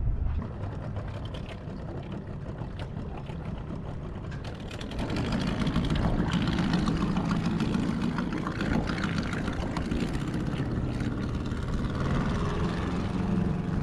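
A small boat's outboard motor running, getting louder about five seconds in and holding a steady hum.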